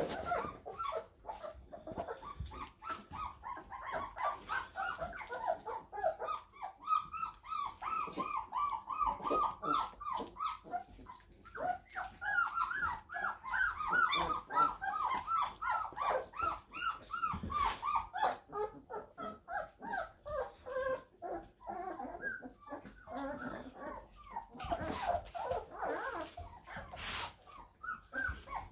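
Young Labrador puppies squeaking and whimpering as they play together: a near-constant run of short high squeaks, several a second.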